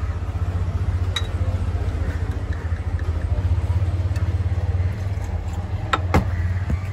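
A steady low engine hum, like a motor vehicle idling close by, runs under everything. Light metallic clinks of a steel jigger and glass bottle being handled come about a second in and twice near the end.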